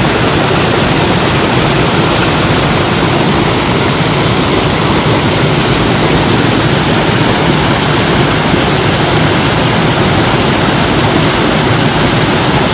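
Steady, loud rushing of flowing water, like a stream running over rocks.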